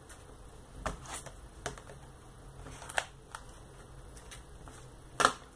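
Clear plastic CD case being handled and turned over on a table: a few sharp clicks and light rustles, the loudest near the end.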